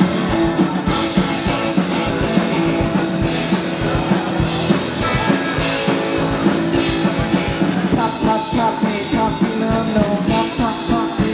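Live rock band playing an up-tempo song, with a drum kit driving a steady beat under guitar and other instruments.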